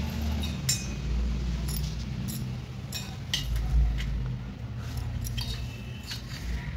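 Brass puja plate, small metal bowl and pot clinking as they are handled: about eight light, irregular clinks, some with a brief metallic ring.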